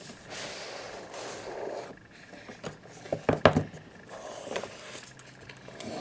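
Cardboard smartphone box being handled and opened by hand: a sliding, rubbing scrape for about two seconds, then a few light taps and knocks of the packaging.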